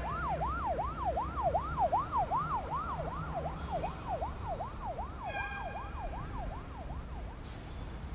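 Emergency vehicle siren in a fast yelp, its pitch sweeping up and down about three times a second and fading out near the end, over a low steady city rumble. A brief higher tone cuts in about five seconds in.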